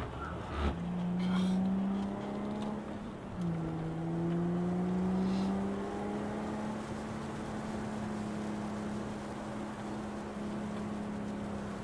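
Car engine heard from inside the car, pulling up in revs, then a gear change about three and a half seconds in drops the pitch before it climbs again and settles into a steady cruise, with road noise underneath.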